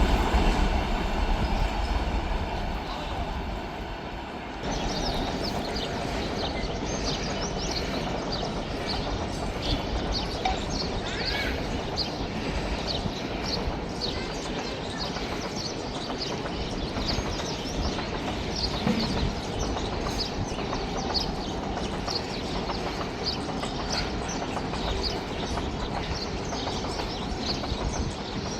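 A train running past, its heavy rumble fading over the first four seconds or so. Then, after an abrupt cut, steady outdoor noise with many small birds chirping rapidly and repeatedly.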